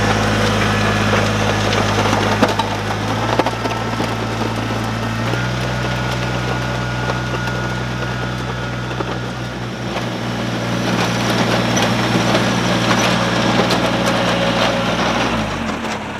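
Kubota BX2380 compact tractor's three-cylinder diesel running steadily under working throttle while dragging a box blade over gravel, with gravel crunching. The engine note drops near the end as it throttles down.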